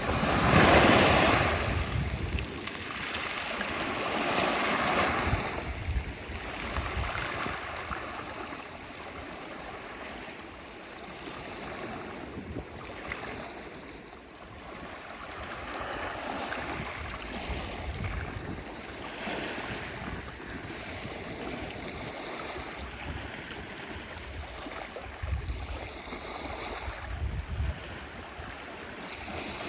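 Sea waves breaking and washing ashore, the surf swelling and fading in slow surges, loudest about a second in, with wind buffeting the microphone.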